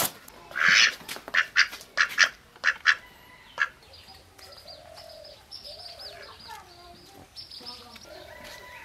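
Tied-up domestic duck quacking in a quick run of loud, harsh calls over the first three seconds or so. Faint bird chirps follow in the background.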